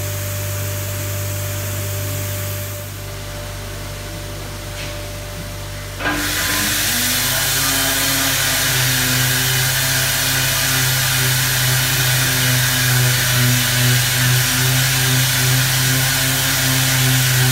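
An electric random orbital sander, hooked to a dust-extraction hose, switches on suddenly about six seconds in and runs steadily, sanding a sheet of metal. Before that a lower steady hum is heard.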